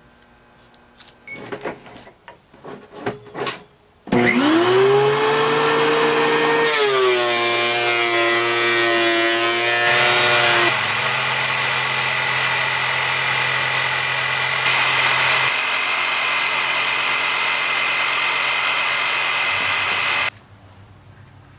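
Handheld electric jigsaw starting with a rising whine about four seconds in, then running and cutting through a red cedar board, and stopping abruptly about a second before the end. Light rustling and clicks come before it.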